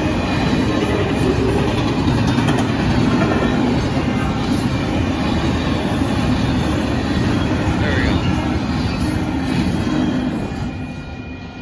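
Union Pacific intermodal freight train rolling past at the crossing: a loud, steady rumble of wheels on rail that fades away near the end as the last cars clear.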